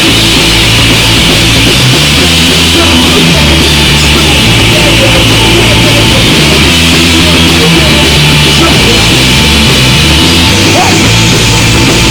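Live rock band playing loud and distorted: electric guitar chords over bass and drums, without vocals.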